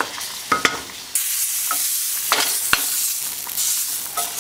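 Wooden spoon stirring roux into a pot of boiling wax beans, knocking several times against the pot, over a steady bubbling hiss of the boiling liquid that sets in about a second in.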